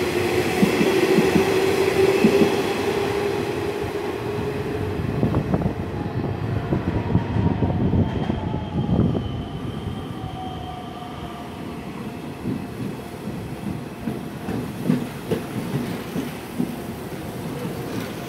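Nishitetsu 5000-series electric train running past with a steady motor whine and wheel noise that fade as it moves off. Then the 3000-series 'Tabito' train arrives, giving a falling whine as it slows and wheels clicking over rail joints, the clicks spacing out as it draws up.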